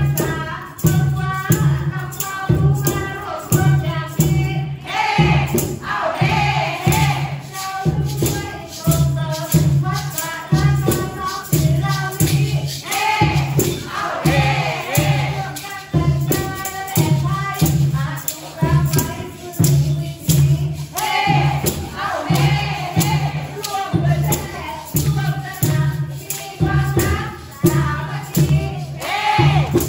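Women singing into a microphone, with others in the room joining in, over a steady beat of about two strokes a second. A hand-held maraca is shaken and hands clap along in time.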